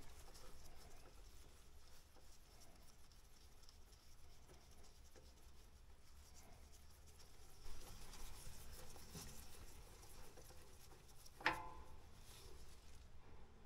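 Faint scraping and rustling of a gloved hand and rag working a loosened engine oil filter off by hand, with a small knock about eight seconds in and a sharper knock about eleven and a half seconds in.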